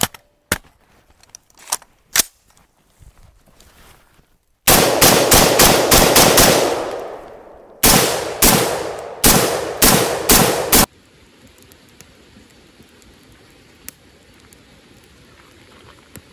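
Rapid gunfire in two strings. The first is about eight shots fired quickly, about five a second, with a long echo trailing off. After a short pause come about eight more shots, a little slower, which cut off suddenly. Before the shooting there are faint scattered clicks and knocks.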